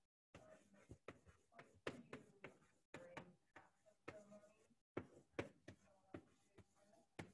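Chalk writing on a chalkboard, faint: an irregular run of short taps and scratches as letters are written.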